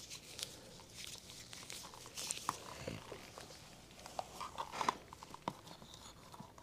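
Faint rustling and light clicks of a half-face respirator being handled by gloved hands, its straps pulled over the head and adjusted, with a short cluster of louder rubbing a little before the end.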